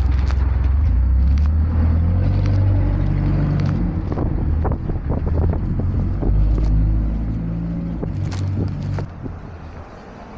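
Elevated train passing on the steel El structure overhead: a loud, low rumble with steady low tones and scattered clicks that fades away near the end.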